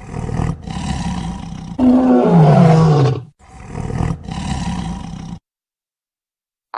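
Dinosaur roar sound effect: a rough growl that swells into a loud roar, falling in pitch, about two seconds in. Then comes a second, shorter growl that cuts off suddenly.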